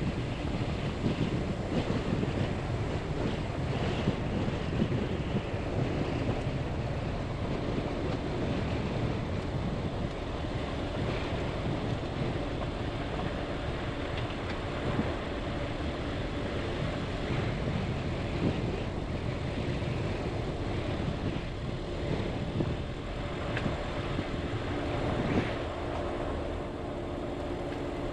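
A vehicle driving, with steady tyre rumble and wind noise. There are a few light knocks here and there, and a steady hum comes in near the end.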